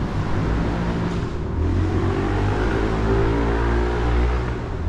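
ATVs with snorkel intakes running past, their engines really loud.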